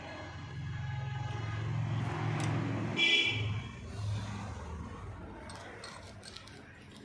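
A passing road vehicle's engine rumble swells over the first few seconds, with a short horn honk about three seconds in. A few light clicks follow near the end.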